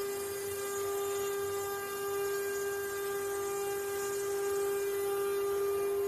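CNC wood-carving router's spindle motor running at a steady speed: a constant whine.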